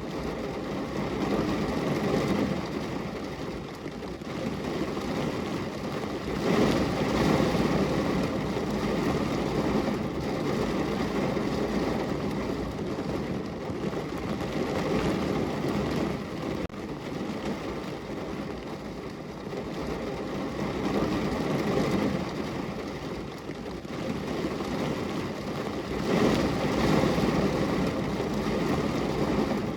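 Rain falling on a car's window and body, a dense steady patter that swells and eases every few seconds.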